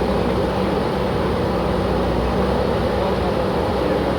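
Diesel engine of a JCB backhoe loader running steadily under work.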